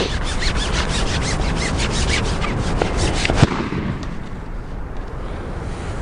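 A 13-metre fishing pole being shipped out, rasping rapidly as it slides over the pole roller and through the hands, ending with one sharp knock about three and a half seconds in. Wind buffets the microphone underneath.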